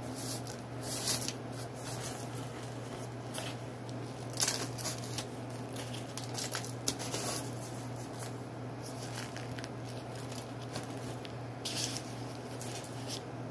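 Paper bag and its plastic liner crinkling and tearing in the hands, with white crumbly chunks breaking apart and dropping onto aluminium foil, in many short irregular crackles.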